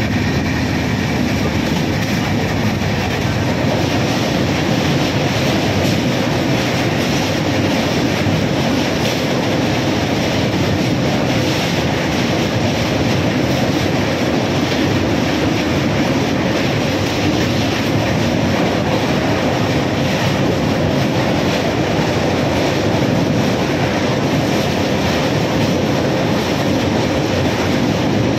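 Train running at speed across a steel truss railway bridge, heard from on board: a steady, loud rumble of wheels on rails with a clickety-clack clatter.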